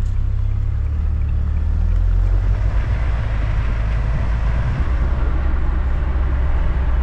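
Camper van driving in city traffic: a steady low rumble of engine and road noise heard from inside the cab.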